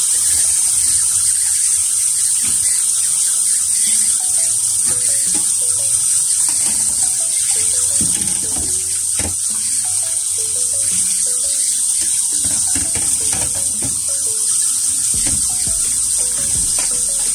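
Tap water running steadily into a sink as plates are washed by hand, with a few knocks of dishes.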